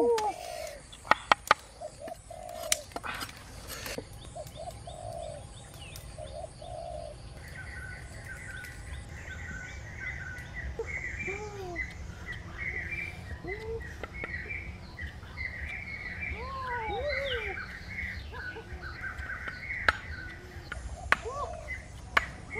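Birds calling: a dense chorus of quick high chirps fills most of the stretch, with occasional lower rising-and-falling calls and a few sharp clicks near the start.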